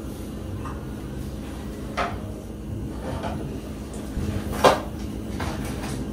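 Kitchen clatter: a sharp knock about two seconds in and a louder one near five seconds, with a few fainter taps, as things are handled at the counter. They sit over a steady low hum.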